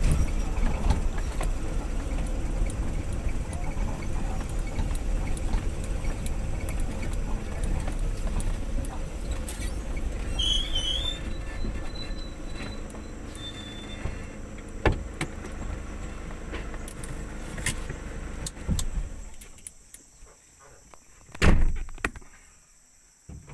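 Vehicle cabin noise on a rough dirt track: a steady low engine and road rumble with knocks and rattles from the bumps. The rumble dies away about three-quarters through, leaving a few sharp knocks.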